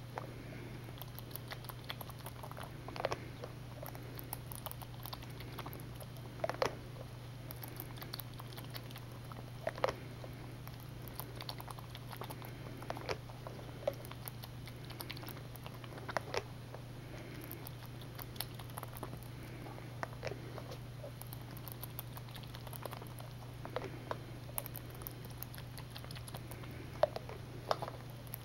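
Young jackrabbit suckling milk from a plastic feeding bottle: a run of small sucking clicks and smacks, with a louder click about every three seconds.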